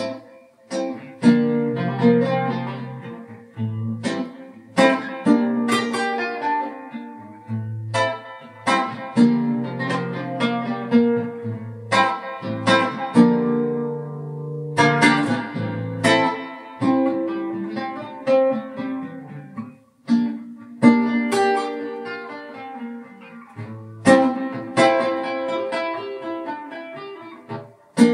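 A guitar plays an original instrumental piece in plucked chords and single notes that ring out and decay, with a brief pause about twenty seconds in.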